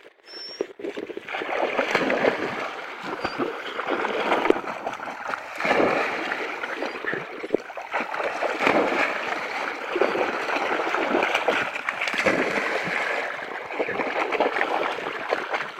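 Dogs splashing about in shallow dam water, one leaping up and dropping back in, with uneven splashing and sloshing throughout.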